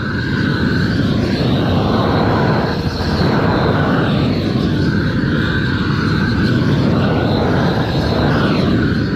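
Gas roofing torch burning at full flame, a loud steady rush of noise, as it heats the felt underlay to melt it onto the wall edge.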